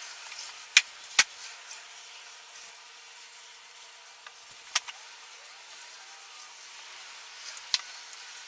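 Four sharp, short knocks and clicks, two close together about a second in, one near the middle and one near the end, over a faint steady hiss: tools and parts being handled at a workbench.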